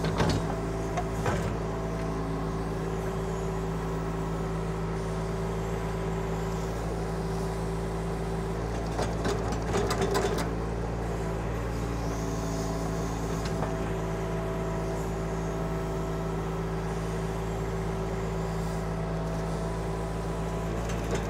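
Kubota diesel engine of a KYMRON XH26 mini excavator running steadily under digging load. A few short knocks and scrapes from the bucket working the dirt come near the start and again about nine to ten seconds in.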